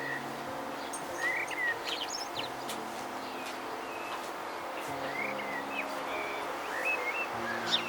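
Small birds chirping and twittering on and off over soft background music of long held notes, with a steady hiss underneath.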